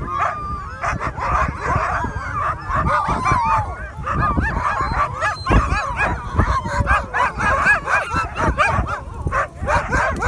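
A team of Greenland sled dogs yelping, whining and howling all at once, many high cries overlapping without a break.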